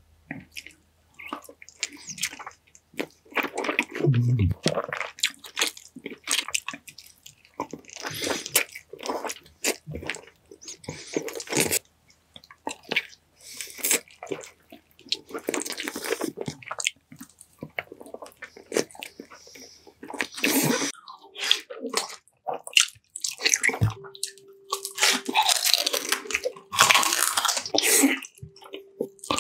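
Close-miked mukbang eating: bites into glazed chicken drumsticks and wet, smacking chewing with some crunch, in irregular bursts with short pauses.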